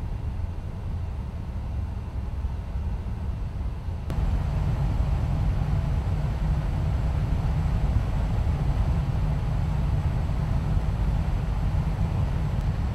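Steady in-flight rumble of MV-22 Osprey proprotors and turboshaft engines mixed with rushing wind, heard from aboard. About four seconds in it jumps suddenly louder and fuller, then holds steady.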